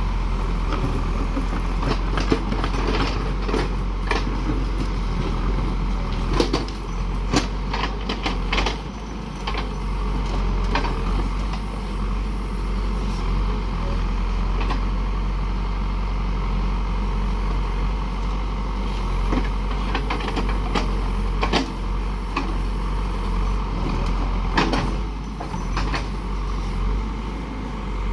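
Heavy diesel construction machine's engine running steadily, with occasional sharp knocks scattered throughout.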